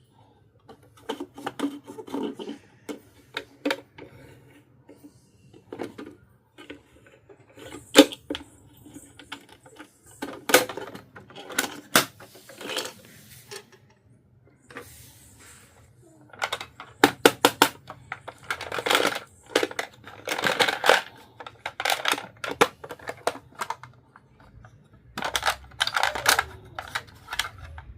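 Miniature plastic toy pieces handled in an unboxing: irregular sharp clicks and taps, with a few longer stretches of rustling.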